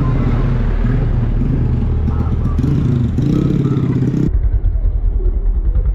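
A motorcycle engine running steadily; after a cut about two thirds of the way in, it settles into a fast, even low chugging.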